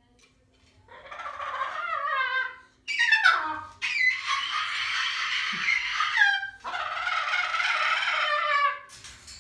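Moluccan cockatoo screeching: four long, raspy calls in a row, the longest about two and a half seconds.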